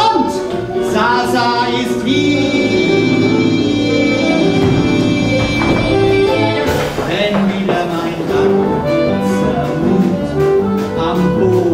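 Live jazz band playing a show tune with a singer: a long held note from about two seconds in, then the full band comes in about seven seconds in with a swinging, brassy beat.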